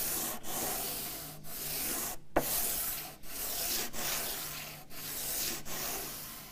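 Sanding block rubbed back and forth along a bare ebony fretboard with the frets pulled, sanding the board during a refret: about seven strokes of under a second each, with one sharp knock a little over two seconds in.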